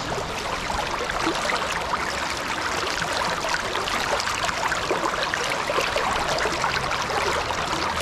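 Shallow stream water flowing over flat bedrock close to the microphone: a steady, even babble of water.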